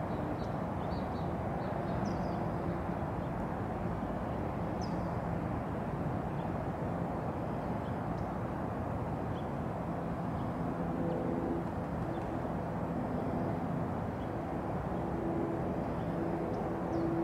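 Outdoor ambience: a steady low rumble, with a few faint high chirps in the first few seconds and a faint steady hum that comes in after about ten seconds.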